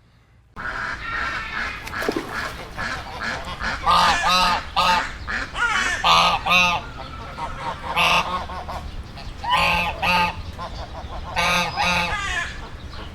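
Geese honking, loud calls often in quick pairs every second or two, over a steady din of other calls.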